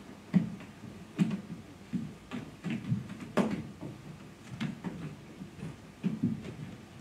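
Dancers' hands, knees and feet knocking and sliding on the stage floor: irregular soft thuds with a few sharper clicks, one or two a second, the sharpest about halfway through.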